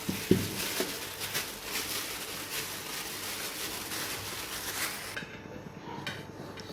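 Hands kneading hot jowar (sorghum) flour dough in a wide plate: soft rubbing and irregular light knocks over a faint hiss.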